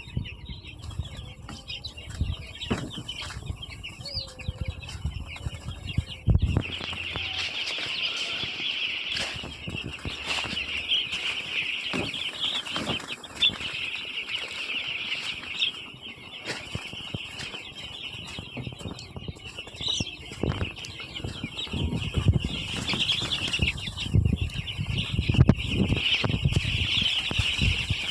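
A large flock of chickens in a poultry house: a dense, continuous chorus of calls and clucking that grows louder about six seconds in, with wing flapping and scuffling throughout.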